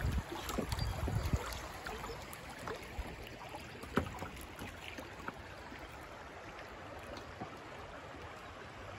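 River water rippling and lapping around a drifting kayak, a steady watery rush. Low buffeting in the first second or so, and a single sharp knock about four seconds in.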